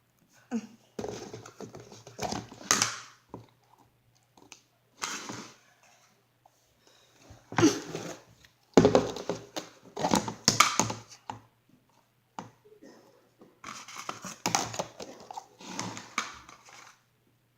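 Plastic slime containers being handled and opened: irregular crinkling and rustling in bursts, loudest about halfway through, with short pauses between.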